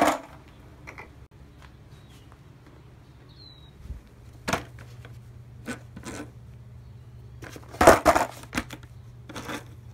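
Scattered knocks and clatter of a skateboard being handled and turned over, its trucks and wheels knocking, the loudest about eight seconds in, over a low steady hum.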